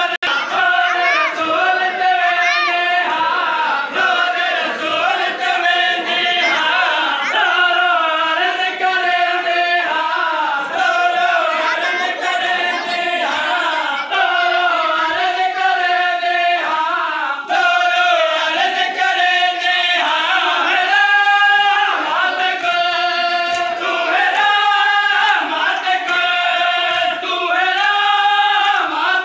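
Large group of male mourners chanting a Muharram lament (nauha) together in unison, one sung phrase repeated after another.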